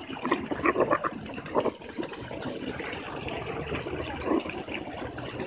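Shallow pool water splashing and sloshing as a toddler crawls through it, with many short, irregular splashes over a steady noisy background.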